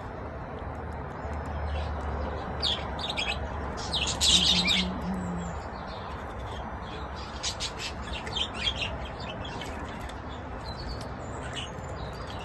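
Budgerigars chirping and chattering in scattered short bursts over a steady background hiss, with the busiest flurry about four seconds in.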